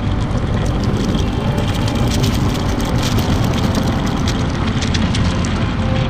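Electric skateboard rolling fast along an asphalt path: a steady rumble of its wheels on the rough surface, with many small scattered clicks.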